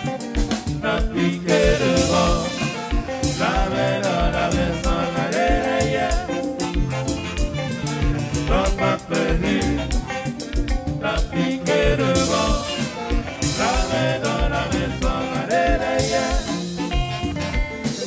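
Haitian konpa band playing live: saxophones and trumpet, keyboard and drum kit over a steady dance beat, with singers and cymbal washes now and then.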